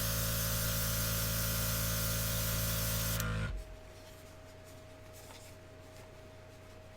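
Airbrush spraying at the compressor's maximum pressure, blowing the last of the rubbing-alcohol cleaning flush through the brush: a loud steady hiss over the compressor's hum. About three and a half seconds in the trigger is released and the hiss stops, leaving only the compressor's faint steady running tone.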